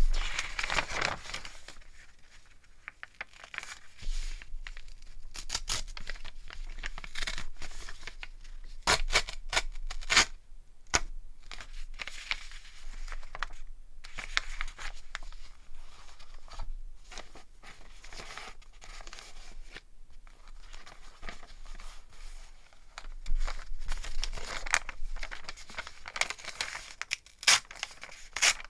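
Brown kraft paper and newsprint-style paper handled by hand: crumpled and rustled in irregular crinkling bursts, with sharper rips as the sheets are torn into smaller pieces. The crumpling is done to give the paper an aged, worn look.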